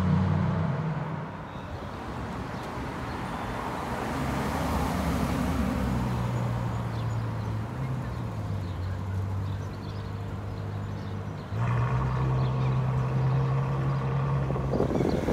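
Sports-car engines in street traffic: an Audi R8 Spyder's engine swells as it pulls away, then a white Ferrari's V12 runs while stationary at a traffic light. About three-quarters of the way through, the Ferrari's note jumps suddenly louder and higher and holds steady.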